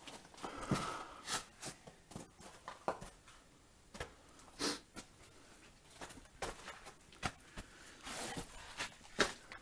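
Footsteps crunching and scuffing unevenly over the rough stony floor of a mine passage, with clothing and rucksack rustling; one sharper crunch near the end.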